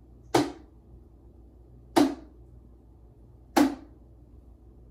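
Full strokes on a snare drum with both drumsticks landing together: three sharp single hits about a second and a half apart, each dying away quickly.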